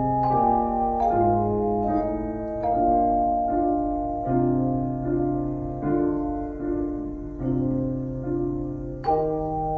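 Tone chimes played by a group, ringing sustained notes in chords, with new chords struck about once a second.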